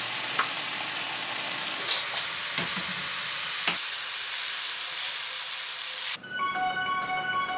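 Chicken and garlic sizzling in olive oil in a frying pan while being stirred, with a few sharp clicks of the spatula against the pan. The sizzle cuts off suddenly about six seconds in and gives way to soft music.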